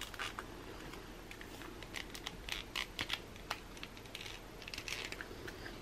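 A new Cricut fabric blade's packaging being opened by hand: a run of irregular light clicks and rustles.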